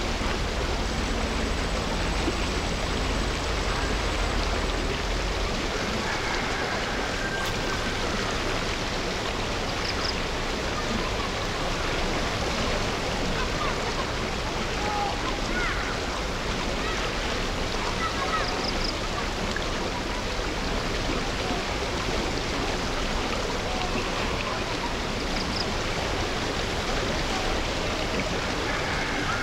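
Steady rush of running water, even and unbroken, with a few faint short chirps above it.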